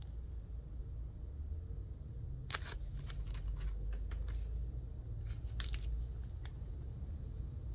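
Comic books in plastic bags being handled and set down: short crinkles and clicks of the plastic sleeves, a cluster about two and a half seconds in and another around five and a half to six seconds, over a low rumble of handling noise.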